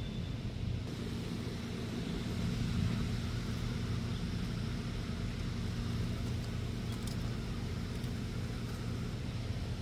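Steady low mechanical hum of a running engine or motor, holding one pitch.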